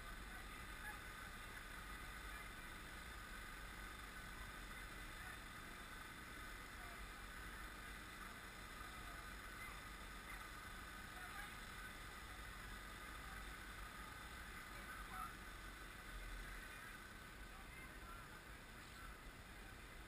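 Faint, steady background hum and hiss with no distinct events.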